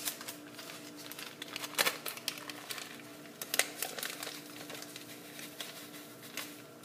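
Paper instant-oatmeal packet crinkling as it is handled and opened, with dry oats poured out into a plastic bowl near the end; a faint steady hum runs underneath.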